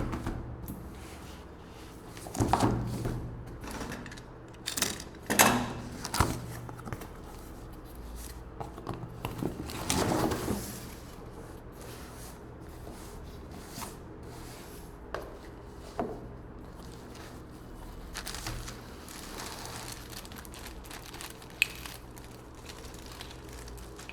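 Cardboard box and plastic packaging being handled and opened: irregular rustling, crinkling and light knocks, busiest in the first half, with one sharp click near the end.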